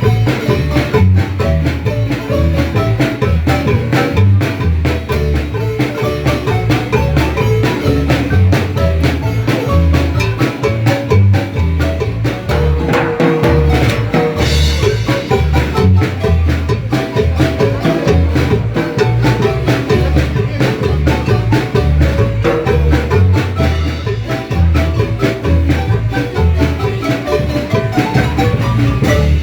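Marimba music: many quick mallet-struck notes over a steady, even bass beat.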